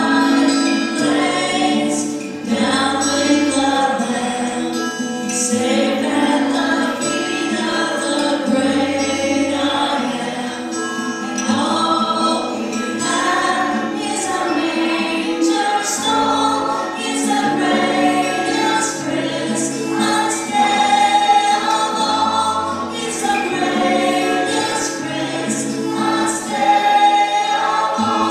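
A choir singing a song to instrumental accompaniment, with a moving bass line and light percussion.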